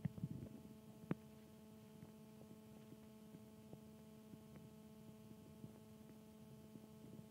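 Near silence with a faint steady electrical hum of several even tones, broken by a few soft clicks, the sharpest about a second in.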